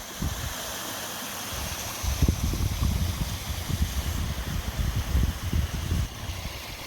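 Steady rushing noise, with irregular low wind buffeting on the microphone starting about two seconds in.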